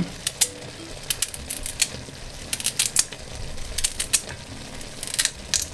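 Chopped carrots being added to the curry pot: a run of sharp, irregular clicks and clatters as the pieces land.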